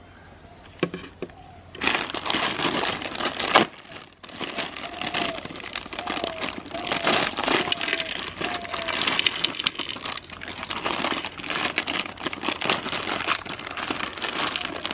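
Meat grinder crunching and crushing objects fed into it: a dense, irregular crackle full of sharp clicks that starts about two seconds in, breaks off briefly near four seconds, then carries on.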